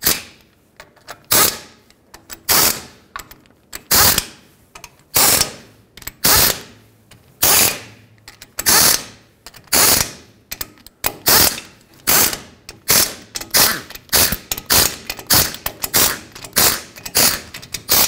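Pneumatic air ratchet running down the differential cover bolts in short bursts, about one a second, each bolt spun in and snugged in turn.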